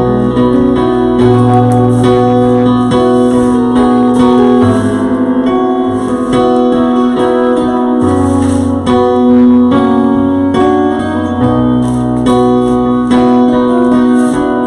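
Slow keyboard music: sustained chords over a held bass note that shifts to a new chord every three to four seconds.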